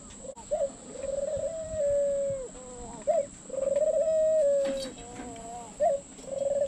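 Doves cooing: three long, drawn-out coos, each a second or more, with a few short notes in between.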